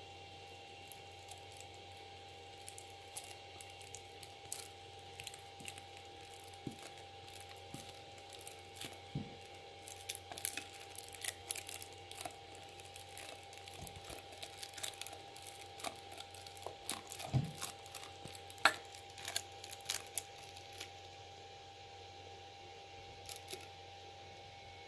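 Plastic glue bottle and container handled while glue is poured for slime: scattered small clicks, crinkles and squishes, busiest from about ten to twenty seconds in, over a faint steady hum.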